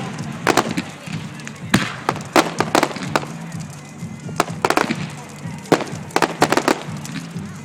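Fireworks bursting at a display: irregular sharp bangs and crackles, some single and some in quick clusters of several.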